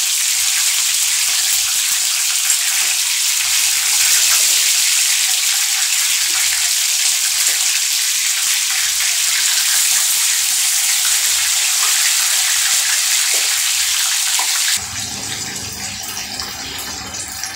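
Marinated chicken pieces shallow-frying in hot cooking oil in a frying pan: a loud, steady sizzle. About fifteen seconds in it drops abruptly to a quieter sizzle.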